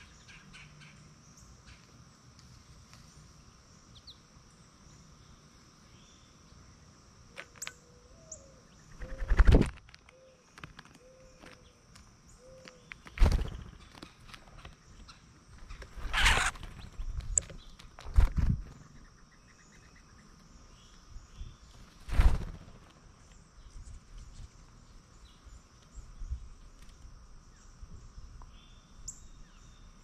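Birds coming and going at a tray feeder of in-shell peanuts: about five loud flutters and knocks close to the microphone as they land, flap and take peanuts. Under them runs a steady high insect drone, with a few faint bird chirps.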